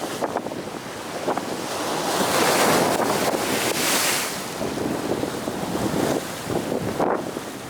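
Big ocean surf breaking along the shore: a wave crashes and rushes in, swelling to its loudest about two to four seconds in, then eases back into the steady wash of the surf.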